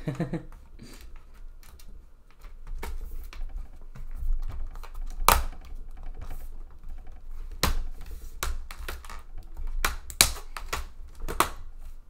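Bottom access panel of a Dell Latitude E7470 laptop being pressed and worked back into place by hand: irregular clicks and knocks as its edges are pushed down onto the chassis, a few louder ones in the second half, over low rubbing and handling noise.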